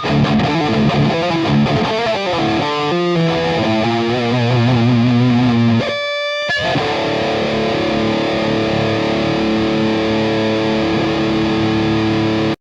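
Ibanez ART300 electric guitar playing a heavily distorted metal riff. About six seconds in there is a short high ringing note, then a chord rings out steadily until it cuts off suddenly.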